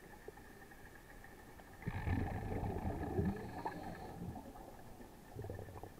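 Underwater recording: a diver's exhaled breath bubbling out of the regulator as a low gurgling rumble for about two seconds, starting about two seconds in. A faint steady whine runs underneath.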